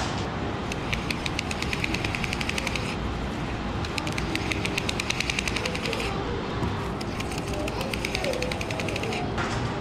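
Adhesive waste matrix being peeled off a roll of die-cut stickers as the roll turns on a label rewinder: a rapid crackling peel in three long pulls, with short breaks between them, over a low steady hum.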